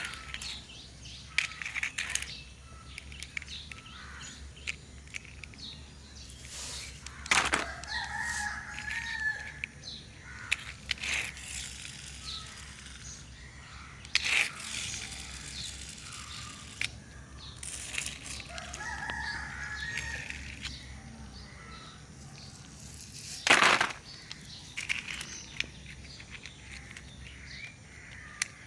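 A rooster crowing in the background, twice, each call drawn out, over a steady low hum. Scattered sharp clicks and knocks run through, the loudest three.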